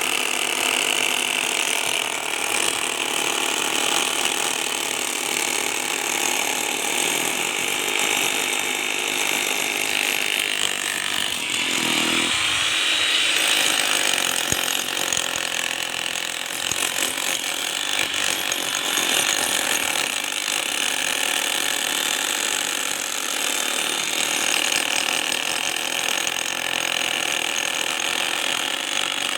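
Power tool working the reinforced concrete road surface, running steadily and loudly, with a brief change in tone about twelve seconds in.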